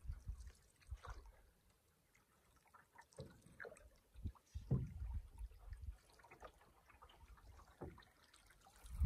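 Faint water sounds of a canoe being paddled on calm water: soft splashes and drips from the paddle, with a few low bumps and a short quiet gap about two seconds in.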